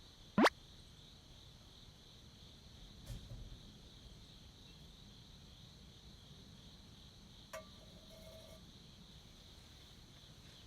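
A steady, high chorus of insects chirring in the background. Just under half a second in comes a brief, sharp upward swish, the loudest sound. A soft thump follows around three seconds in, and a click with a short tone comes near seven and a half seconds.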